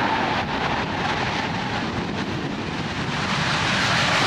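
Panavia Tornado's two RB199 turbofans in full afterburner on the take-off run, a steady heavy jet noise that grows louder near the end as the jet lifts off.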